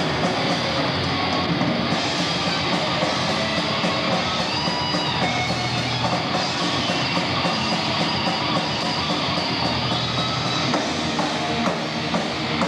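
Death metal band playing live: distorted electric guitar over a drum kit in a dense, unbroken wall of sound, recorded on a camcorder.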